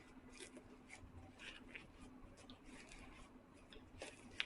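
Faint rustling and small clicks of shoelaces being handled and spread out on a Nike Air Force 1 sneaker, with one sharper click near the end.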